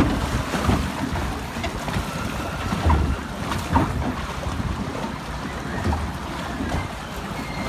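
Water rushing along a log flume channel as the log boat rides through it, with wind on the microphone and a few short low thumps.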